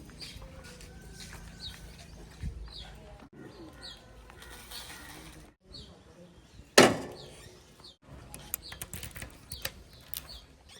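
A small bird chirping repeatedly, a short high call about every second, over faint outdoor background, with one loud sudden thump about seven seconds in.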